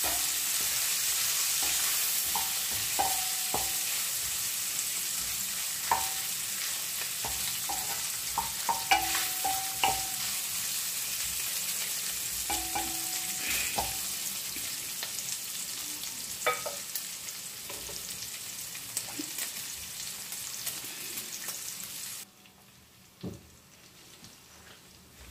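Diced pancetta sizzling in oil in a nonstick frying pan, stirred with a wooden spoon that knocks and scrapes against the pan now and then. The sizzle slowly eases and cuts off suddenly near the end.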